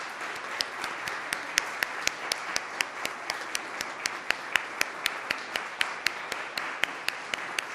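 Audience applauding, with one person's claps close to the microphone standing out sharply above the rest, about four a second.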